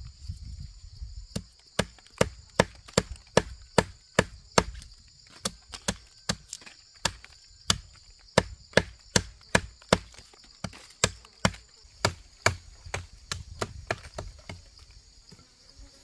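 Repeated chopping strikes on wood, about three a second, starting about a second in and stopping near the end, over a steady high chirring of insects.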